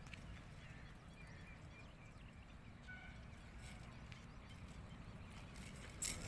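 Faint lakeside ambience: a low wind rumble with a few faint short bird chirps, and a brief louder rustle near the end.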